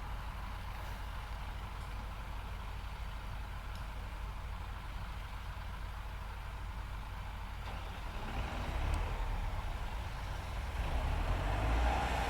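Heavy diesel engine running steadily at low revs, then picking up about two-thirds of the way in and louder again near the end, as machinery works the recovery.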